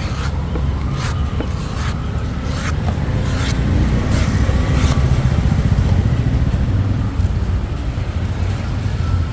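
Machete chops into fresh coconuts, sharp strikes about once a second that thin out in the second half, over a steady rumble of road traffic.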